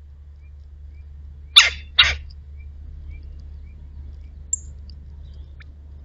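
Red-bellied woodpecker at a seed feeder: two loud, short, sharp sounds about half a second apart, then a faint high chip a few seconds later.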